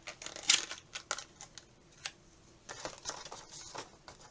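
Toy packaging being opened by hand: a string of irregular sharp clicks and short plastic crinkles as an action figure is worked out of its plastic tray and box.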